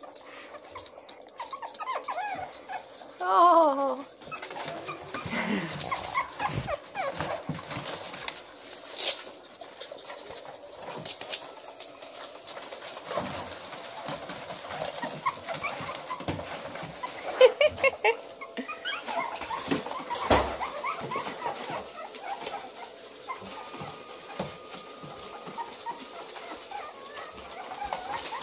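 Pug puppies whining and yipping in a few short calls, with newspaper rustling and crinkling under their paws as they scramble about.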